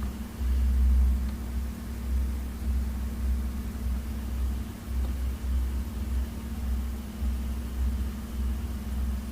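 Low, uneven rumble that swells and dips every second or so, over a steady low hum.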